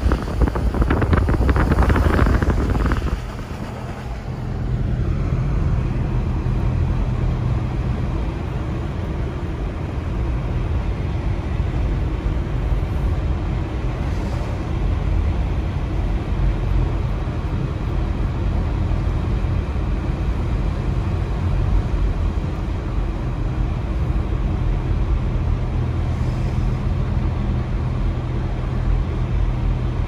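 A car driving along a snow-covered road, heard from inside the cabin: a steady low drone of engine and tyre noise. For about the first three seconds a louder rushing noise lies over it, then cuts off suddenly.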